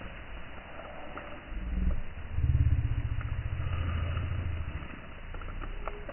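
A Belgian Malinois growls low as it hangs from a rope by its teeth. A short growl comes about a second and a half in, then a louder, steady growl runs from about two to five seconds. A few light clicks follow near the end.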